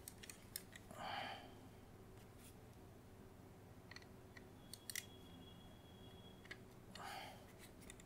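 Faint clicks and ticks of a precision screwdriver turning small screws inside a plastic computer-mouse shell, with two short soft scraping sounds from handling the shell.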